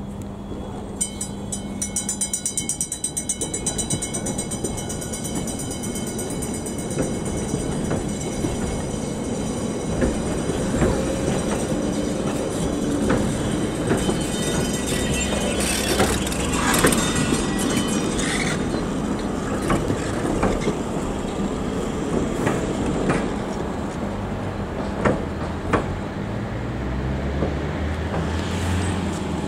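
A tram's bell rings rapidly for about two and a half seconds, about a second in. Then a long coupled tram train, a KT4UA 'VinWay' car and a Be 4/6 Mirage car, rolls past on the rails with a steady rumble and clattering clicks from the wheels, easing off near the end as it moves away.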